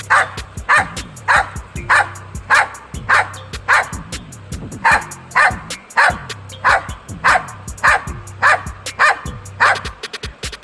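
A dog barking over and over in short, sharp barks, about one and a half a second, with one brief pause about halfway through.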